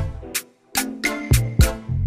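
Background music with a steady beat: punchy drum hits over heavy bass and sustained pitched notes.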